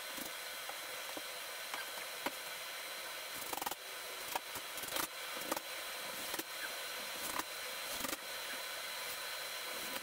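Scattered light knocks and clicks of hand work on a drywall wall, more frequent in the second half, over a steady hiss.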